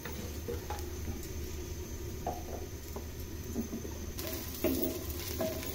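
Sliced onions frying in hot oil in a clay handi, a faint sizzle with a spatula stirring through them. The sizzle grows brighter about four seconds in.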